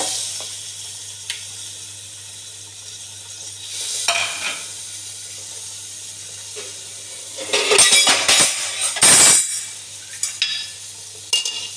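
Hot mustard oil sizzling in an aluminium pressure cooker as raw mutton pieces and marrow bones are dropped in, with louder bursts of sizzling and clatter against the pot about eight and nine seconds in.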